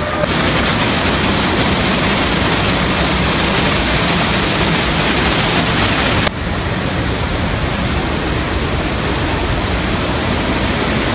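Steady rush of falling water from artificial waterfalls cascading down rockwork: a loud, even hiss. It breaks off for an instant about six seconds in and resumes a little quieter.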